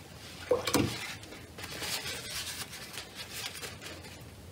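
Crumpled paper tissue rustling and crackling as it is handled, with a brief louder sound just under a second in.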